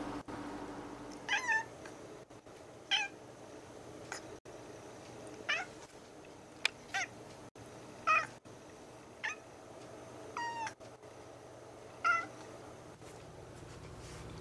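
Orange-and-white domestic cat meowing repeatedly, about nine short meows, one every second or so, with one slightly longer call near the end: a cat begging for food.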